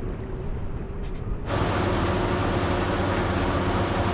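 Motor cruiser under way: a steady engine drone with the hiss of water and wind. About a second and a half in, the hiss suddenly becomes louder and brighter.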